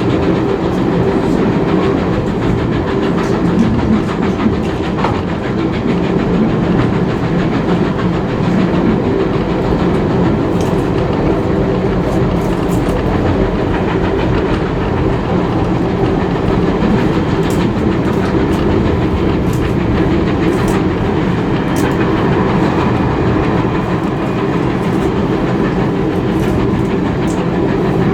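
Passenger train carriage rolling along at speed, heard from aboard: a steady rumble of wheels on rail with faint, scattered sharp ticks and clicks.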